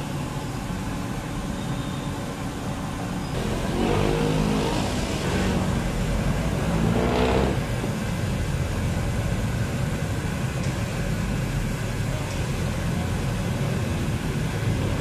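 Steady street traffic rumble, with two motor vehicles passing close by, louder about four and seven seconds in.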